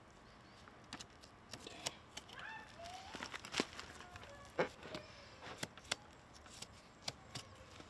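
Fillet knife cutting a large African pompano's fillet away from the carcass, with scattered sharp clicks and crackling, tearing sounds as the blade works along the bones and the flesh is pulled back.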